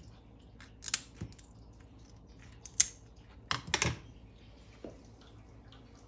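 Kitchen scissors snipping through crisp roast pork crackling: a few irregular sharp crunches, the loudest a little before the middle and a quick cluster just after, the crackle of well-crisped skin.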